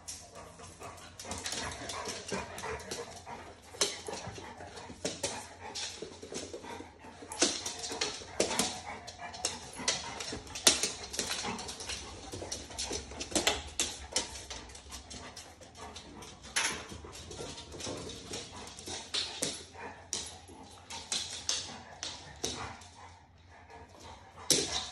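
A yellow Labrador whining, with short barks and yips, amid many sharp clicks and taps.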